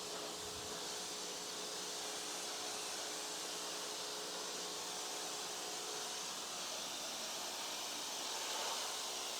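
Electric pressure washer spraying a 15-degree jet onto the patio: a steady hiss of water with an even motor hum underneath.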